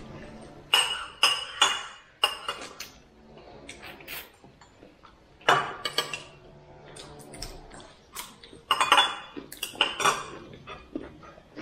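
Cutlery and dishes clinking and clattering during a meal: sharp knocks, some with a short ring. They come in bunches, about a second in, near six seconds and again around nine to ten seconds.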